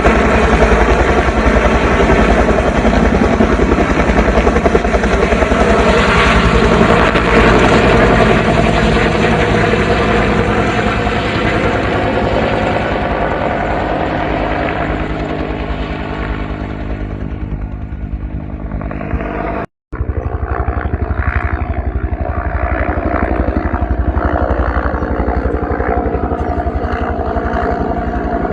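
Military helicopter running, its rotor beating rapidly over a steady engine whine. The sound grows quieter and duller after the midpoint, cuts out for a moment about two-thirds of the way in, then comes back.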